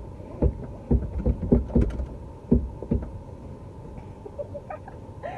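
A car seatbelt being pulled out and worked at its buckle: a run of short knocks and clicks over the first three seconds or so, then quieter.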